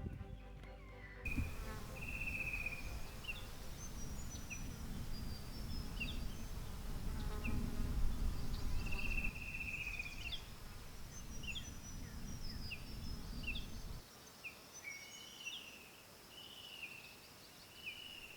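Forest birds calling with short chirps, downward-flicking notes and brief trills, over a low rumble that cuts off abruptly about fourteen seconds in.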